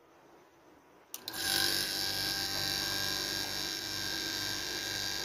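A sharp click about a second in, then a Mitsubishi Electric rotary air-conditioner compressor starts on its capacitor wiring and runs with a steady hum. It comes on and keeps running, a sign that the common, running and starting terminals are wired correctly and the compressor is good, building pressure.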